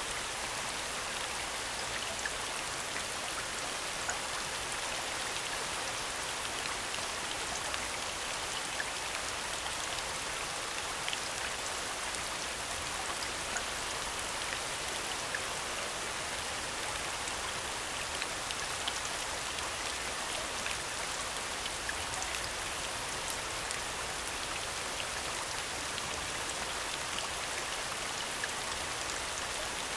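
Steady falling rain: an even hiss of rainfall with scattered small drop ticks, from a rain soundscape.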